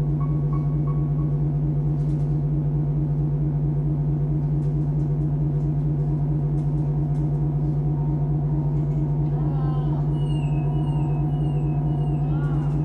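Ambient soundtrack music for a stage dance: a steady low drone with a pulsing, layered texture above it. From about nine seconds in, gliding tones come in, followed by short falling high tones that repeat about twice a second.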